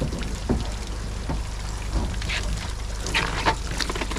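Water splashing and dripping in irregular bursts as netted brown trout thrash in the tank water, over a steady low hum.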